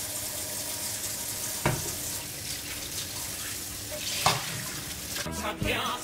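Kitchen faucet running steadily into a stainless steel sink while a frying pan is scrubbed under the stream, with two sharp knocks as the pan is handled, about one and a half seconds and four seconds in.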